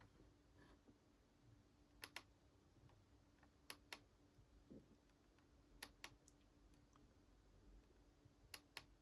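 Computer mouse clicks, faint and in four quick pairs about two seconds apart, over near silence with a low steady hum.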